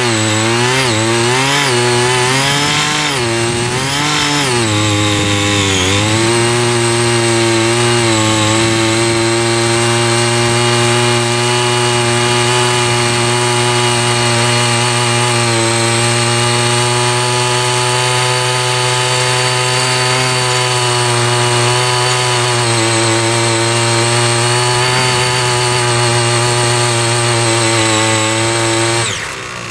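Small 3.3 hp engine of a CY50 mini power tiller running at high speed while its rotary tines churn into the soil. Its pitch rises and falls several times over the first few seconds, then holds steady, and falls away sharply near the end.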